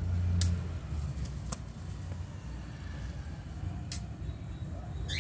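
A low rumble runs under three sharp clicks, spaced about a second or more apart, from a rose-ringed parakeet moving on a plastic water tub and the tiled floor; a brief high chirp from the parakeet comes right at the end.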